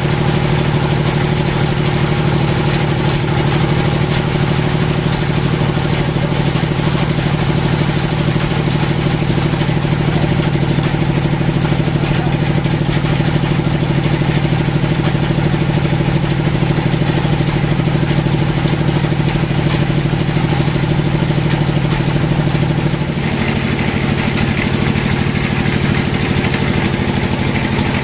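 Sawmill band saw running steadily, a continuous machine drone from its drive with the blade spinning. About 23 seconds in, the low drone eases and a higher hiss comes up.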